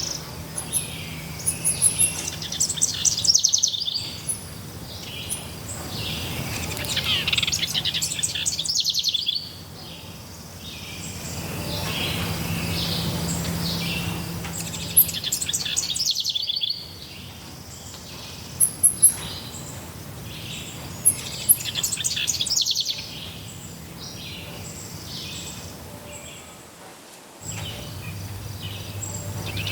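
Several wild birds singing and calling, with overlapping chirps and fast trills. The background cuts and changes abruptly several times, as where separate recordings are spliced together.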